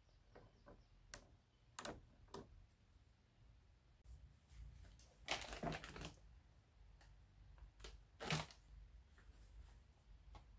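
Faint, scattered clicks and knocks of hard plastic as a Honda Scoopy-i scooter's speedometer assembly is handled, lifted out of its housing and set down, with a few louder knocks about two, five and eight seconds in.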